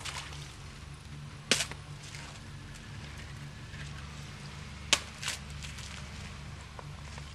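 A long wooden pole struck down onto ice on a frozen, muddy trail to break it: one sharp crack about a second and a half in, then two close together about five seconds in. Idling Land Rover engines make a low steady hum underneath.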